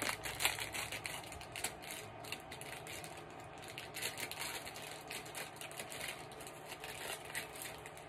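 Rapid, irregular small plastic clicks and crackles, from a plastic-wrapped pop-it fidget toy and its packaging being handled.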